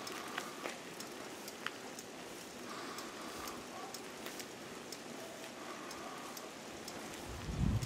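Steady outdoor hiss with scattered small clicks and a few faint short tones, with a brief low rumble on the microphone just before the end.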